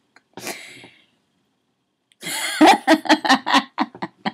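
A woman laughing: a short breathy burst, then about two seconds in a run of quick, rhythmic pulses.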